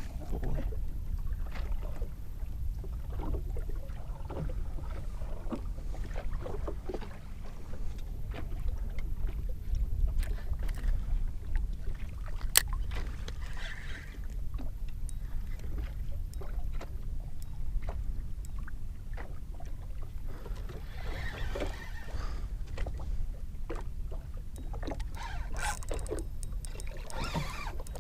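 Steady low rumble of wind and water around a small fishing boat, with scattered light knocks and clicks and one sharp click about halfway through.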